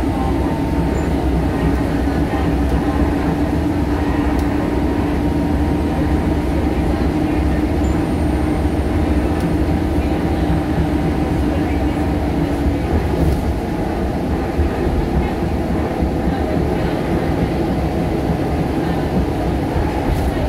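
Cabin noise of a Scania L94UB bus under way: the rear-mounted five-cylinder diesel drones along with road rumble. A steady whine creeps slightly up in pitch and stops about thirteen seconds in.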